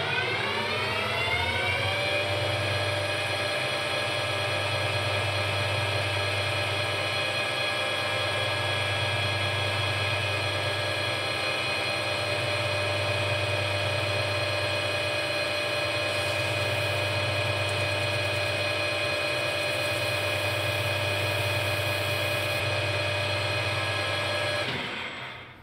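Metal lathe starting up. Its motor whine rises in pitch over about two seconds to full speed, then runs steadily with several even tones. It shuts off about a second before the end.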